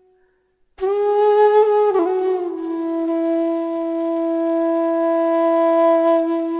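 Background music: a flute playing long sustained notes. It enters after a brief silence near the start, bends in pitch about two seconds in, then settles into one long held note.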